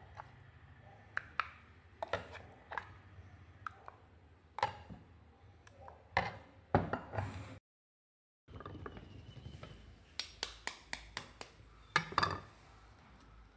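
A metal spoon scraping and clinking against a stainless-steel mixer-grinder jar as thick ground nut paste is scooped out, in scattered sharp clinks and scrapes. After a short gap, a quick run of light taps, then a louder knock near the end.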